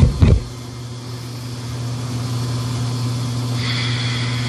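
Steady low room hum, with two quick low thumps at the start and a soft hiss from about three and a half seconds in.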